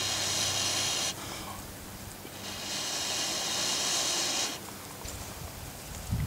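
Two long, steady breaths blown onto a glowing coal sitting on a split wooden branch, the air hissing across the ember to make it burn deeper into the wood. This is coal burning, hollowing out the bowl of a spoon.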